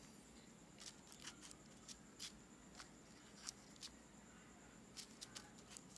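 Near silence with faint, scattered ticks and scratches of a pen writing on a sheet of paper, over a faint steady high whine.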